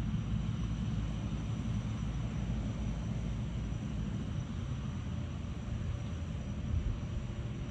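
Steady low drone of a blimp's propeller engines.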